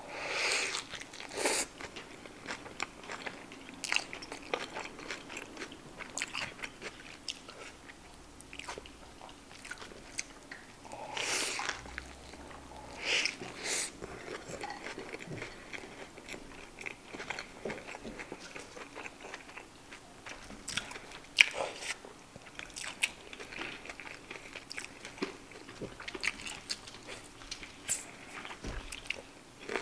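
Close-miked eating sounds: a bite into a cheeseburger, then chewing with crisp crunches. The sound comes as scattered clicks and a few louder bursts, the sharpest about two thirds of the way in.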